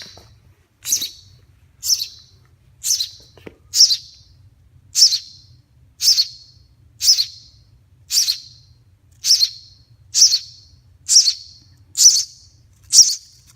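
Baby bird chirping, about one short high-pitched call every second in a steady, regular series: the begging calls of a hungry nestling asking for food.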